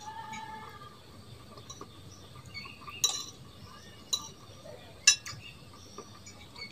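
Metal spoon clinking and scraping against a ceramic plate while scooping food, with three sharp clinks about a second apart, starting about three seconds in.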